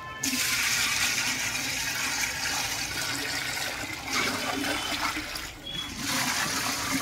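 Water poured in a heavy stream from a large steel bowl into a big pot of biryani masala, gushing and splashing into the liquid. The pour eases briefly about five and a half seconds in, then a second bowlful goes in.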